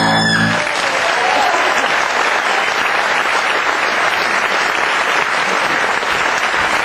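Audience applauding steadily, with the last held chord of the song ending about half a second in.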